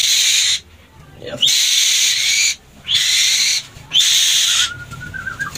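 A perched young bird of prey giving four loud, harsh, hissing screeches, each about half a second to a second long, as a falconry glove is brought up to it. A faint thin whistle follows near the end.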